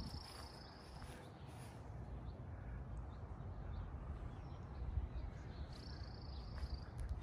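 Footsteps of someone walking slowly outdoors, with a bird giving a high, drawn-out call twice, at the start and again about six seconds in.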